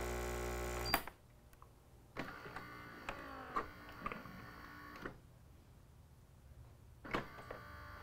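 Gaggia Babila espresso machine's pump humming steadily while brewing an espresso lungo, then cutting off with a click about a second in as the stop button ends the shot. A second later the machine's internal mechanism runs for about three seconds with a faint motor whir and clicks, and another click comes near the end.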